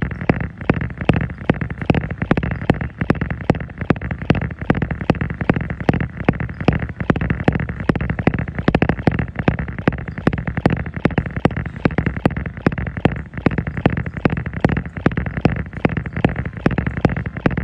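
Jogging footfalls thumping on a moving treadmill belt in a quick, even rhythm, over the treadmill's steady running hum.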